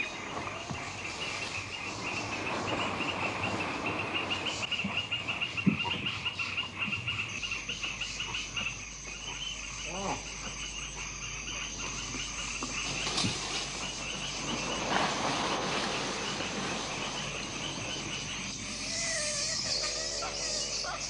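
A steady chorus of tropical forest insects, a continuous pulsing buzz, with a few scattered animal calls. About seven seconds in, a thin, high steady tone joins it, and near the end there is a short call.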